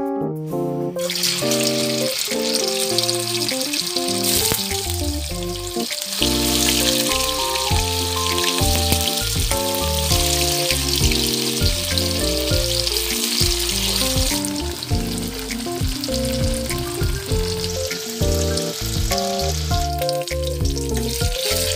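Tofu cubes frying in hot oil in a wok: a steady sizzle that starts about a second in and eases a little in the last third. Background keyboard music plays throughout.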